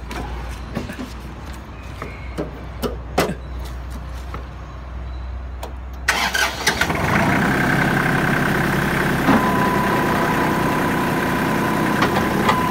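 Kubota L1-235 tractor's three-cylinder diesel engine cranking and catching about six seconds in, then idling steadily. Before it, a few light clicks and knocks from the controls; a thin steady tone joins the idle a few seconds after the start.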